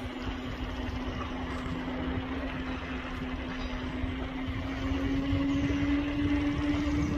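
Motor vehicle on a road: a steady engine drone over road noise, its pitch rising a little and getting louder from about five seconds in.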